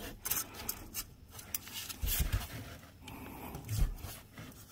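A band-type oil filter wrench clicking and rubbing against a spin-on oil filter as it is tightened. The filter is being turned hard by hand toward two full turns past seal contact. Two short grunts of effort come about two seconds in and near the end.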